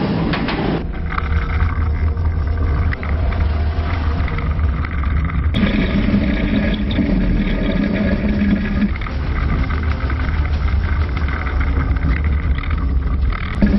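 Oblivion – The Black Hole, a Bolliger & Mabillard dive coaster, running its train along the steel track: a loud, steady rumble. The sound changes abruptly about five and a half seconds in.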